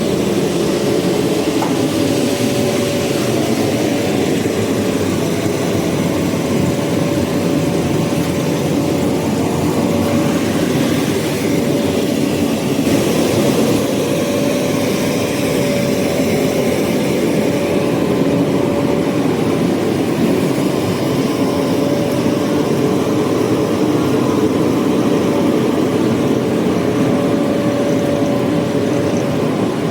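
Continuous carbonizer and its charcoal production line machinery running: a loud, steady mechanical hum with a constant high tone running through it.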